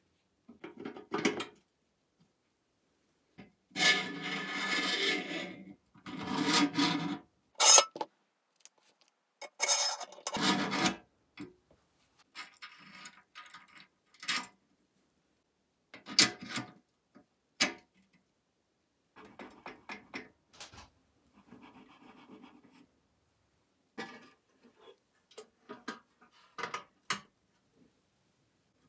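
Parts of a sheet-metal toy truck being handled during reassembly: rubber-tyred wheels slid onto a steel axle and the axle pushed through the chassis, heard as a string of scraping rubs and sharp metal clicks with short pauses between them.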